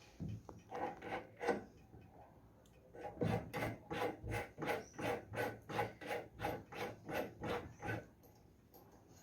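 Drill press chuck being twisted by hand to open its jaws and fit a 3 mm bit: a series of short rasping strokes, a few at first, then about two a second for several seconds.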